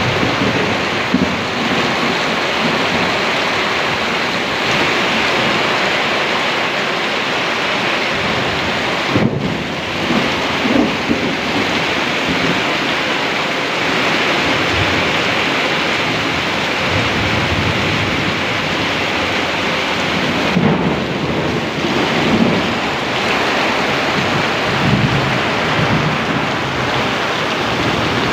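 Steady, loud rushing of heavy rain, with low rumbles rising and falling a few times.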